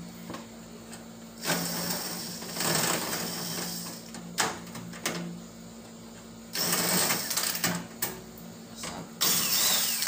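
Makita cordless drill-driver backing out the screws that hold a microwave oven's outer cover, its motor running in three bursts, the first about two and a half seconds long, with a few sharp clicks between.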